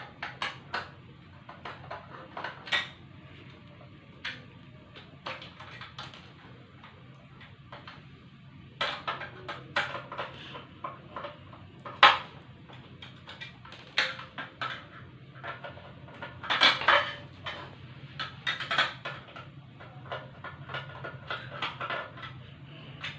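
Standing-fan parts being handled during disassembly: irregular clicks, knocks and light metallic clinks as the adjusting pipe and fittings are worked loose, with one sharper knock about halfway through.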